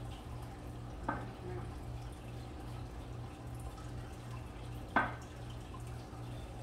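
A potato being cut by hand with a small knife over a bowl: two short sharp taps, about a second in and about five seconds in, the second louder, over a steady low hum.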